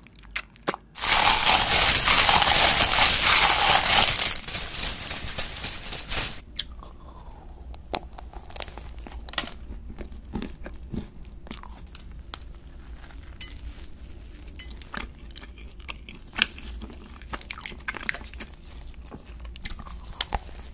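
Close-miked eating sounds: a red jelly being sucked in with a loud, rough slurp for about three seconds near the start. Then quieter bites and chewing of a sprinkle-covered donut, with scattered soft, sticky mouth clicks.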